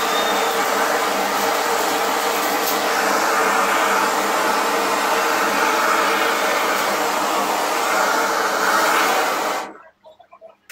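Gas blowtorch flame hissing steadily as it singes the skin of a plucked chicken. The hiss cuts off abruptly near the end when the torch is shut.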